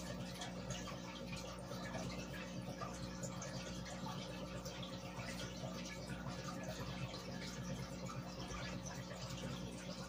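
Aquarium aeration: a stream of air bubbles rising and popping at the water surface, a steady busy patter of small pops and trickles, over a steady low hum.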